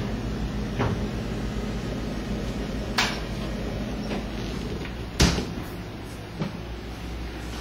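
Side-by-side refrigerator-freezer doors and bins being handled: a few sharp knocks and clacks, the loudest about five seconds in as a door shuts, over a steady low hum.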